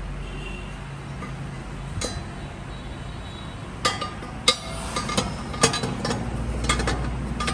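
Metal lid of an antique cast-metal incense burner clinking against its body as it is handled: a string of sharp metallic clinks with a short ring, one about two seconds in and a quick cluster in the second half.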